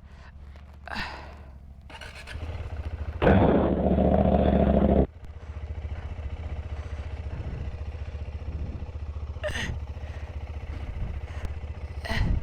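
Adventure motorcycle engine running, revved hard for about two seconds a little over three seconds in, then dropping abruptly back to a steady idle.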